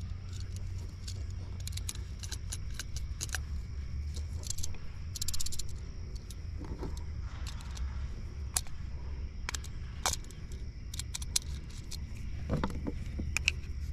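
Small, irregular clicks and light rattles of a replacement receptacle end being handled while its ground screw and brackets are worked, over a steady low hum.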